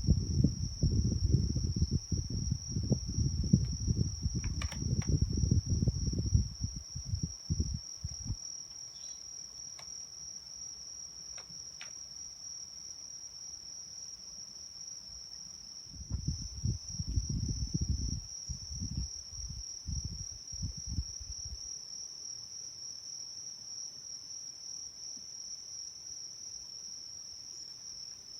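A continuous high-pitched insect trill holds on one steady pitch throughout. Bouts of irregular low thumping and rumbling come in the first eight seconds and again in the latter middle.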